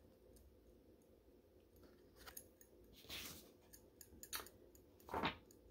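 Faint handling sounds of an enamel pin on its cardboard backing card: a few short rustles and small clicks, the last about five seconds in the loudest.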